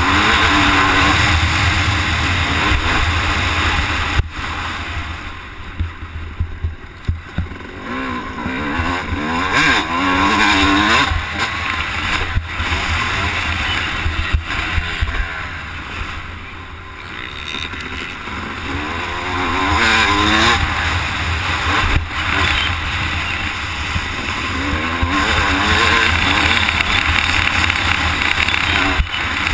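Motocross bike engine revving up and down over and over as the throttle is worked around the track. It eases off twice before pulling hard again, over a heavy low rumble.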